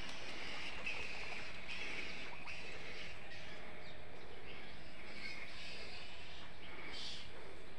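Outdoor ambience: scattered short bird calls over a steady background hiss and low rumble.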